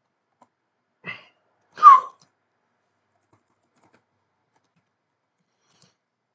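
Two short non-speech vocal noises from a person, about a second apart, the second one much louder and sharper, like a cough or throat-clear.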